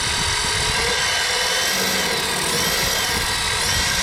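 Brushed 550 silver-can electric motor of an RC drag car whining steadily at high speed through its pinion and spur gears, the rear tires spinning in place to warm them before a run.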